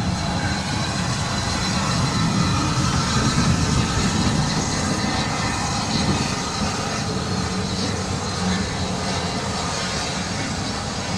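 Bulleid Pacific steam locomotive no. 34053 running slowly through the station, giving a steady hiss over a low rumble.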